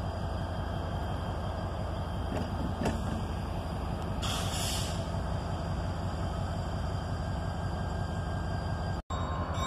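EMD GP30 diesel locomotive running with a steady low engine rumble as it approaches slowly at a distance, with a short hiss of air about four seconds in.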